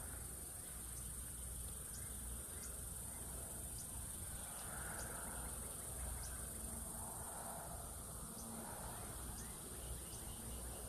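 Steady high-pitched chorus of insects such as crickets, with faint soft rustles of hands working a soft plastic bait onto a hook.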